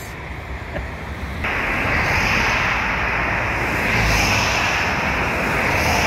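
Steady rush of wind and highway traffic noise, stepping up louder about a second and a half in and swelling briefly around four seconds in.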